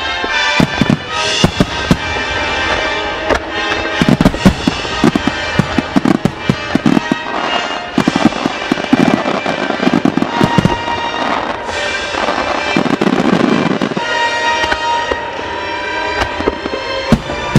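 Aerial fireworks shells bursting in rapid volleys over music, the sharp cracks thickest from about four to eleven seconds in.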